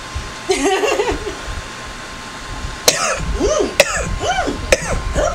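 A man making wordless voice sounds that slide up and down in pitch, with three sharp clicks about a second apart in the second half.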